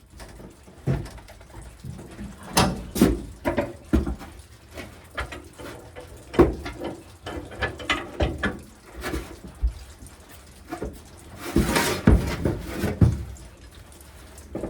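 Irregular metal clanks and knocks from tools and hitch parts being handled and worked into place, with a louder scraping rattle about twelve seconds in.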